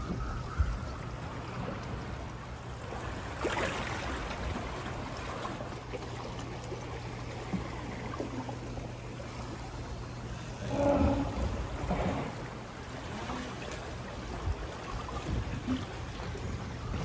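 Fast, flood-swollen river current rushing past moored boats and docks, a steady rush of water, with a brief louder patch about eleven seconds in.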